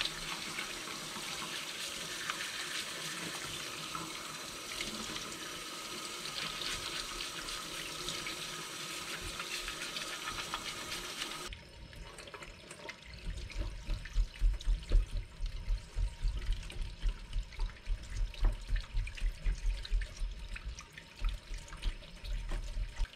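Kitchen tap running onto a piece of dragon stone in a stainless steel sink while it is scrubbed with a toothbrush. About halfway through, the water sound turns duller and irregular low knocks and scraping come in as a wooden skewer digs into the stone's holes.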